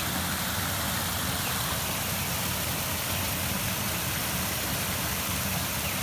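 Creek water pouring over a low curved weir and splashing into the churning pool below: a steady rushing of water.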